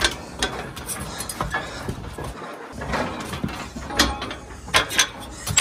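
Metal scaffolding being climbed: irregular clanks and knocks from the ladder rungs and frame, with scuffing and rattling in between.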